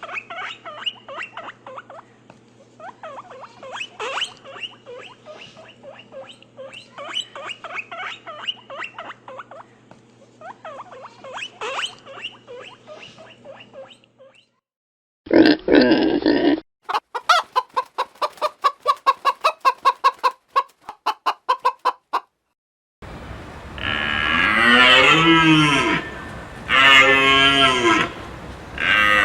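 A run of separate farm-animal recordings: chickens clucking in many short calls for about fourteen seconds, then a short loud call and a quick series of rapid pulses, then cattle mooing in long calls that rise and fall, starting about twenty-three seconds in.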